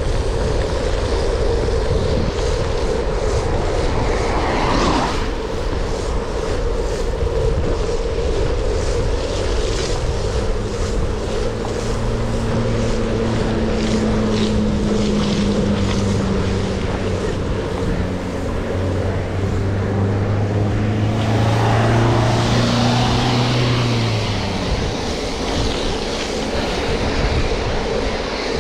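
Wind buffeting the microphone and tyre noise of bicycles riding a wet road. About ten seconds in, a steady engine hum builds and holds, with a louder swell of passing traffic noise just after twenty seconds before the hum fades.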